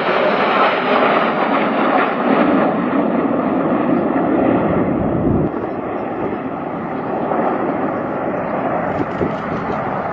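Jet engines of a formation of Red Arrows BAE Hawk T1 jets passing overhead, a loud, steady noise that drops in level about five and a half seconds in.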